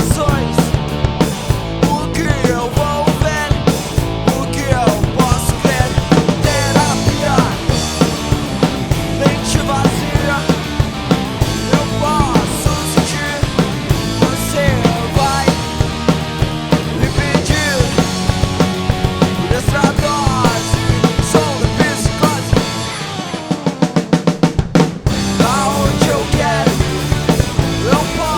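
Rock band music with a driving drum kit beat. About 23 seconds in, the band drops back to a quick run of drum hits, then comes back in full.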